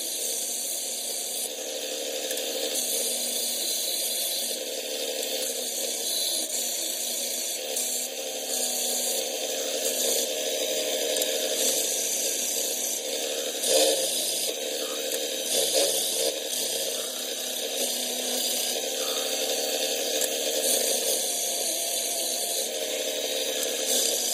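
Central Machinery benchtop belt sander running while a knife blank is held against the belt to grind its profile: a steady hissing grind that swells and eases slightly as the pressure changes.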